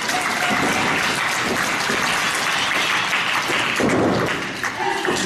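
Arena audience clapping, a dense, steady patter of many hands.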